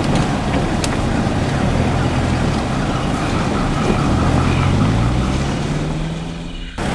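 A vehicle engine running over rough noise, its pitch climbing between about four and six seconds in, then cut off abruptly just before the end.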